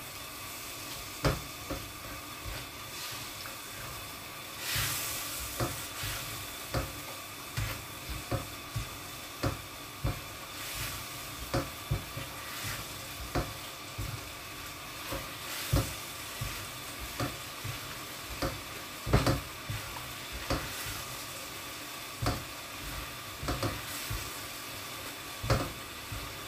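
Sugary orange sauce bubbling and sizzling in a nonstick wok as it reduces down to thicken, while a silicone spatula stirs it, tapping and scraping against the pan about once a second.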